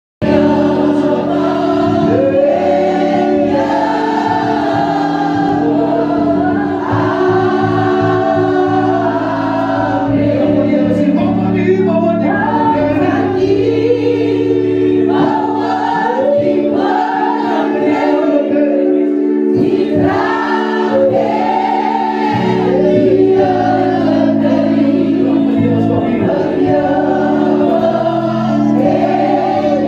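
Worship leader singing an Afrikaans gospel praise song through a microphone, with the congregation singing along, over held electric keyboard chords.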